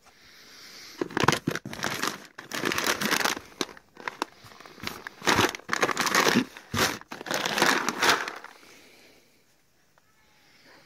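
Plastic bags of dry cat food crinkling and rustling as they are handled and shifted in a cardboard box, in irregular bursts that die away about two seconds before the end.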